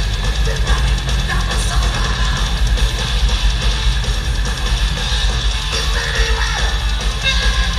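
Heavy metal band playing live at full volume: drum kit and distorted electric guitars, with a dense, heavy low end.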